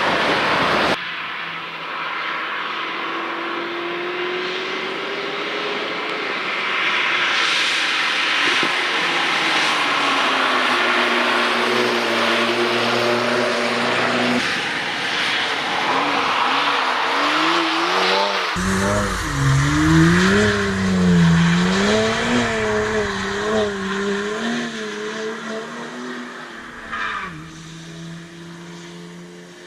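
Cars driving past on a rain-soaked race track: a hiss of tyres and spray under engine notes that rise and fall as they pass. From about 18 seconds in, one car's engine revs swing up and down again and again, then the sound fades away near the end.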